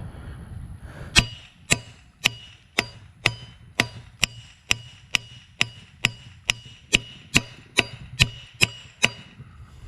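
A hammer striking metal, about eighteen sharp blows at roughly two a second, each with a brief metallic ring, knocking the stuck piston out of the go-kart engine's cylinder.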